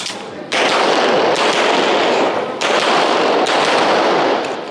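A Metro Arms 1911 pistol firing a string of shots, about one a second, each shot's blast ringing on until the next. These are the opening shots of a timed IPSC stage.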